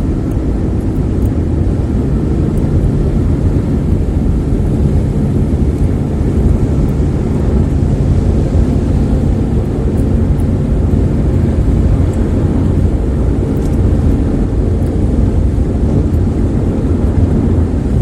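Steady low rumble of a car driving at highway speed on a wet road, heard from inside the cabin, with a few faint light ticks now and then.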